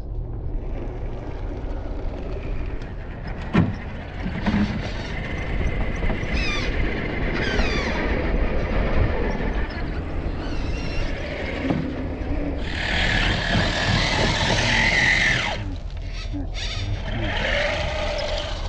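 Electric motors and gear drives of Gmade GS02F scale RC trucks whining as they crawl through sand, the pitch rising and falling with the throttle. A sharp knock comes a few seconds in, and the whine grows louder and denser for a few seconds past the middle.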